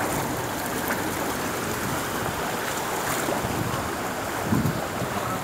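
Heavy rain falling onto a flooded street: a steady rushing hiss of falling and splashing water, with a brief low thump about four and a half seconds in.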